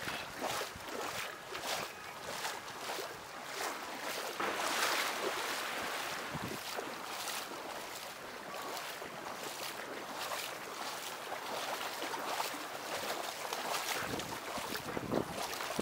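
Small sea waves lapping and splashing at the shore: a steady wash with an irregular run of light splashes.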